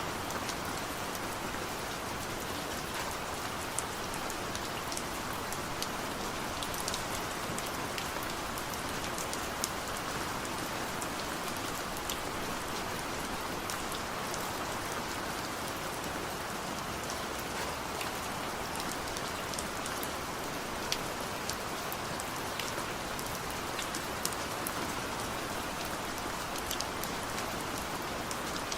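Steady rain falling, with scattered sharp drop hits over an even hiss.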